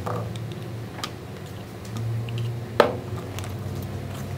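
Metal spoon tapping and scraping against a plastic cup as yogurt is spooned around the rim: a few sharp ticks, the loudest about three seconds in, over a steady low hum.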